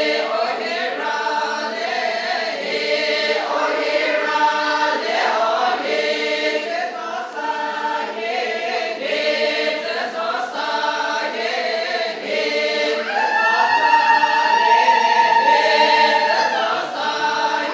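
A group of voices singing together in chorus without instruments, with a long held note near the end.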